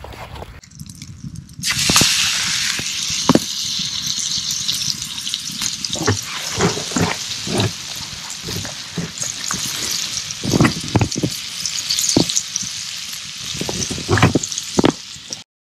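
Steak sizzling in a small steel frying pan on campfire coals, a steady hiss that starts about two seconds in, with scattered sharp pops and crackles on top.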